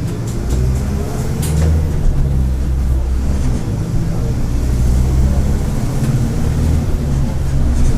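Mercedes-Benz OF-1722M bus's turbodiesel engine running as the bus drives, its pitch shifting up and down with the throttle.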